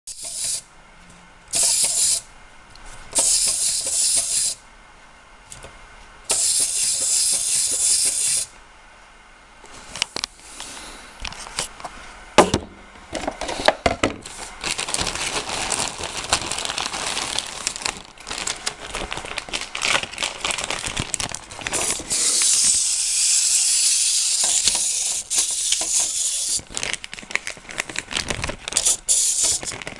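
Zoids Rev Raptor toy's gear mechanism whirring in three short bursts, then running on as the model walks, its plastic legs and parts clattering with a fast run of small clicks.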